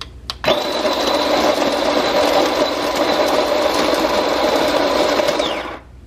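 Beguko electric conical burr coffee grinder running on its 5-second timer, grinding whole coffee beans: a steady motor whir with a high whine that starts about half a second in and cuts off suddenly near the end.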